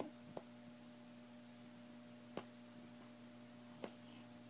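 Near silence: a steady low hum, with three brief faint clicks spread through it.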